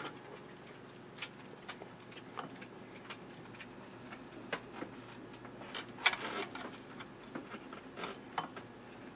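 GE 800D tube television running, with a steady high-pitched whine from its horizontal deflection circuit, under scattered faint clicks and ticks.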